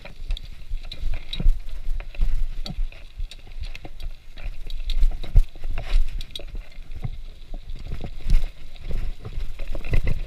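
Bicycle rattling and clattering over a bumpy dirt trail, heard from a chest-mounted GoPro: irregular knocks and clunks over a steady low rumble.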